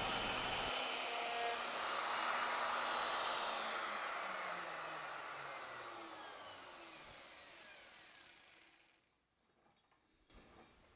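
Wood router on a Legacy ornamental mill spinning down after being switched off at the end of a cut: a whine that falls steadily in pitch and fades over about eight seconds before stopping.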